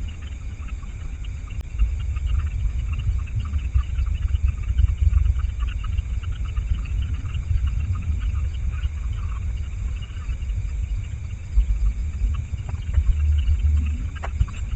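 Wind buffeting the microphone in uneven low rumbles that swell and gust, over a steady chorus of insects chirping.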